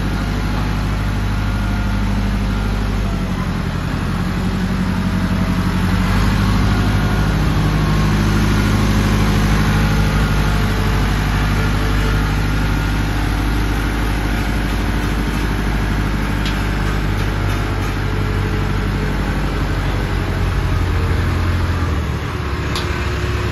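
Massey Ferguson 394H tractor's diesel engine running steadily, revving up and louder from a few seconds in, then easing back, as the tractor is driven up steel ramps into a truck.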